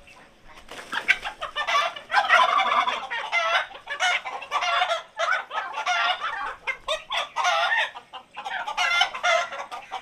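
An Australorp rooster squawking over and over in alarm as it is caught in a hand net. The calls start about a second in.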